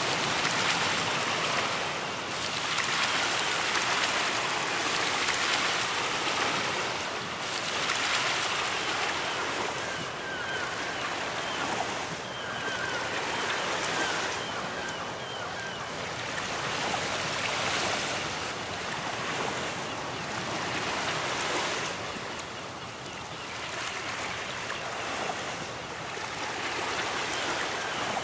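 Ocean surf washing onto a beach, a continuous wash of water that swells and falls back every few seconds.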